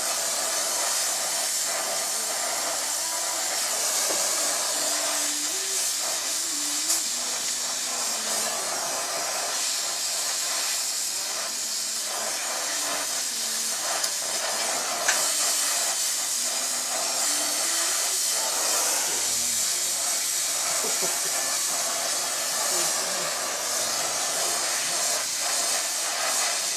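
Steady hiss of a gas brazing torch's flame as it heats a bridge tube between the stays of a steel bicycle frame.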